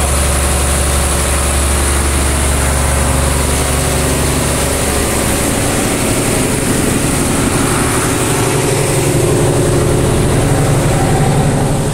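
Six-cylinder MWM diesel engine of the ferry's tug boat running steadily as it pulls the river ferry: a deep, even hum, its lowest note weakening about halfway through.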